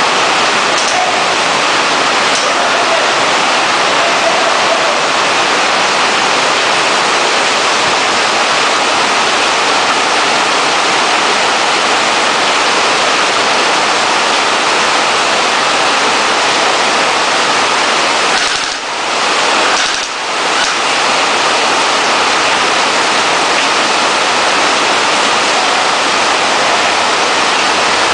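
Heavy rain falling, a steady loud hiss that briefly drops twice about two-thirds of the way through.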